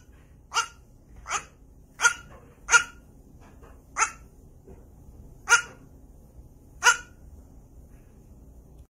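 A young Boer goat giving short, sharp, dog-like barks, seven in all, each abrupt and roughly a second apart.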